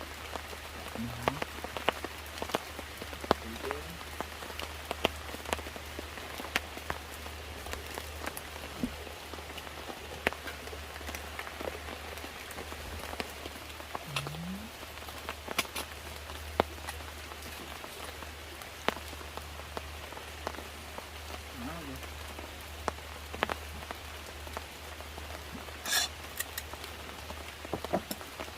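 Steady rain falling, with many sharp drops ticking on a surface and a brief louder crackle near the end.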